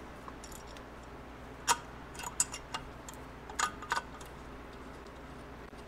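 Scattered sharp metal clicks and clinks as the nuts, threaded rods and steel plate of a homemade case-splitter puller are handled and unscrewed: one click about two seconds in, a few more just after, and a pair near the four-second mark.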